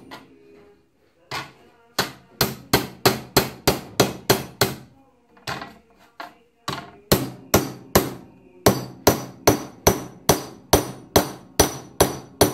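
Hammer blows on a metal licence plate, knocking it flat to straighten the dents around its screw holes. The sharp strikes come about three a second, starting about two seconds in, with a short pause about halfway before a longer run.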